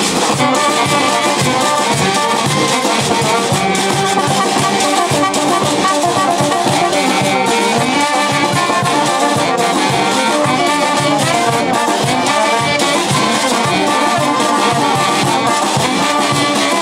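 Brass band playing: trumpets, trombones and sousaphone over congas, timbales, bass drum and cymbal, in a steady dance rhythm.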